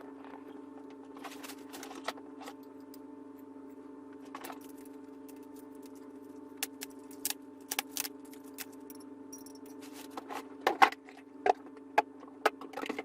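Cardboard box being opened and its packed parts handled: scattered clicks, light knocks and clinks, busiest and loudest near the end. A steady hum runs underneath.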